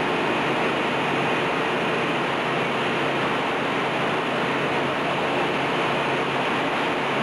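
Continuous running noise of a press-line conveyor and its factory machinery: an even, unbroken rush with a faint steady hum underneath, no separate knocks or clanks.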